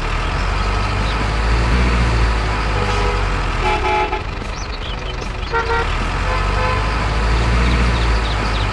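Truck engine rumbling steadily, with two short multi-tone horn toots partway through.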